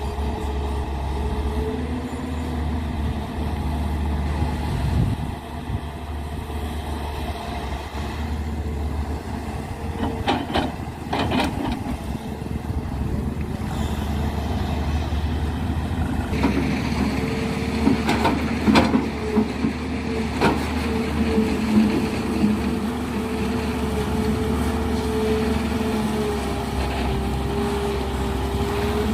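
A heavy diesel engine running steadily, with its pitch wavering slightly. Sharp metallic clanks break in around ten seconds in and again a few times around eighteen to twenty seconds in.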